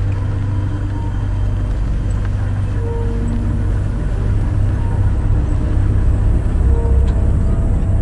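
Suzuki Gypsy jeep's engine running steadily as it drives slowly over a rough dirt track, heard from inside the vehicle as a low drone.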